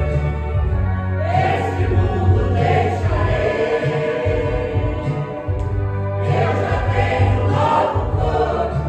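Church choir singing a gospel song together over a loud, sustained bass accompaniment, which drops out briefly about halfway through.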